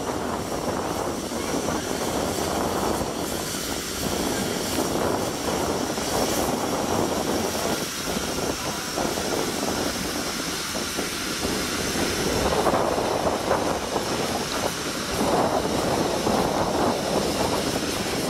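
Steam tank locomotive letting off steam: a steady roaring hiss, growing louder about two-thirds of the way in.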